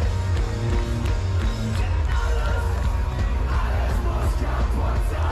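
Live band music played loud over a festival PA, with heavy bass, and a crowd yelling and singing along.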